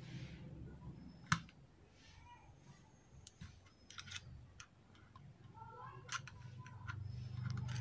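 Faint clicks and light scraping as wires and a thin metal tool are worked through a ceiling fan's hollow brass shaft, with one sharp click about a second in and another near six seconds, over a low steady hum.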